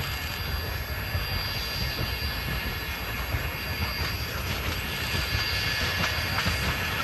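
Distant narrow-gauge steam train running toward the listener: a steady rumble of the train on the rails that grows slightly louder, with faint wheel ticks and hiss building near the end.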